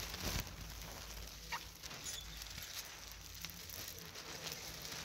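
Faint crackling and rustling of small chickens pecking and scratching in dry straw bedding, with a few light clicks.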